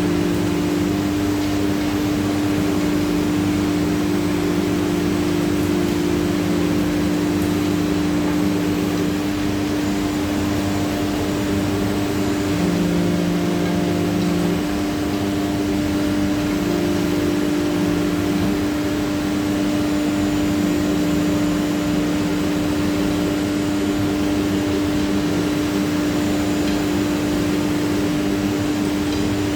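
CNC router running through a cut in a GRC panel: the spindle holds one steady hum, while other motor tones switch on and off every few seconds as the machine moves.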